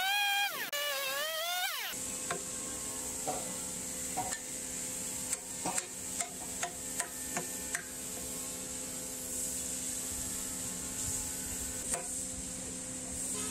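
A chainsaw runs briefly at the start, its pitch dipping and recovering under load. Then a chisel is driven into a log tenon with a mallet: about ten sharp knocks over five or six seconds, followed by the steadier scrape of the chisel paring the wood, over a constant low hum.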